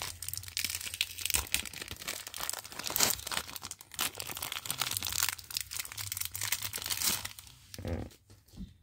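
Clear plastic wrapper being torn off a trading-card starter deck and crumpled in the hands: dense, irregular crinkling that thins out after about seven seconds.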